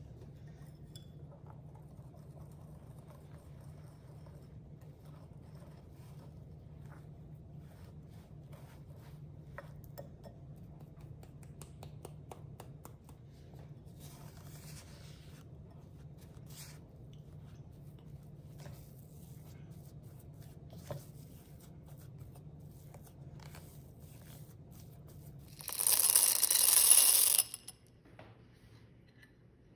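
Wire whisk and silicone spatula scraping and ticking faintly against a glass mixing bowl over a low steady hum. About 26 seconds in, chocolate chips are poured into a glass bowl in a loud rush lasting under two seconds.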